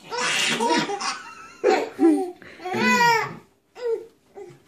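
A baby laughing out loud in several bursts separated by short pauses.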